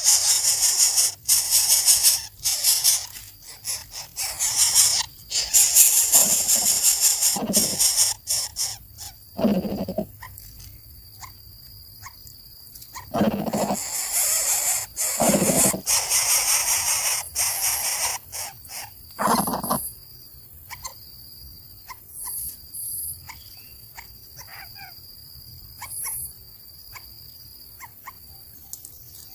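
Nestling birds begging for food in the nest: loud bursts of high, hissing calls with a few lower calls among them, dying away after about twenty seconds. A steady high whine runs underneath from about ten seconds in.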